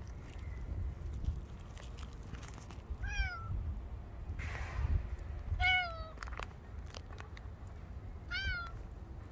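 Domestic cat meowing three times, short calls a little over two seconds apart, each falling slightly in pitch at the end. A brief rustle comes between the first two, over a low background rumble.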